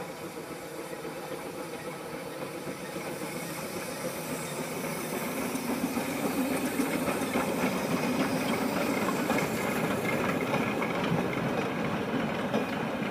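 Narrow-gauge steam locomotive the Countess, built 1902, running along the line with its train, steam and hiss growing louder over the first half as it comes near.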